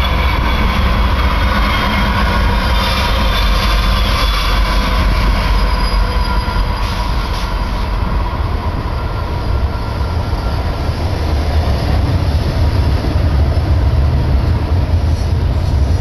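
Union Pacific double-stack container cars rolling past at speed: a loud, steady rumble and clatter of steel wheels on rail, with a thin high wheel squeal over the first few seconds that fades out.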